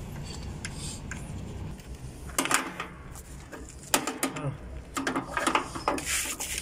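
Scattered short scrapes, clicks and rustles of hands handling a copper refrigerant pipe and its black foam insulation sleeve at an air-conditioner outdoor unit's brass service valves, most of them in the second half.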